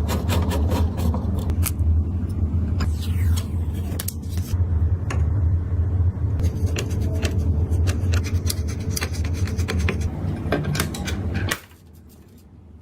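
Computer parts being handled and fitted during a PC build: many short clicks, snaps and scrapes of plastic and metal over a steady low hum. The sound drops away sharply near the end.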